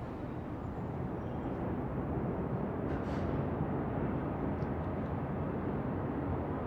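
Steady rumble of city traffic ambience, an even low noise without distinct vehicles or tones.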